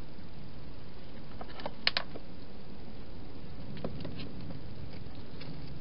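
Small clicks and taps from a hedgehog moving about in a clear plastic feeding box, with two sharper clicks close together about two seconds in, over a steady hiss.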